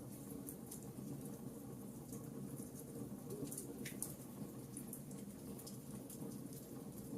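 Campfire burning steadily, with irregular sharp crackles and pops over a low rumble of the flames.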